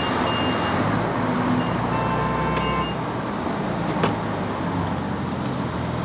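Steady traffic and outdoor noise, with a few faint short beeps in the first three seconds. There is a single click about four seconds in, as the fuel nozzle is handled.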